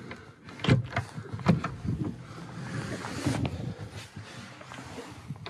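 A yacht cabin door's lever handle and magnetic latch being worked: several light clicks and knocks as the door is moved and latched, with a soft rustle of movement around the middle.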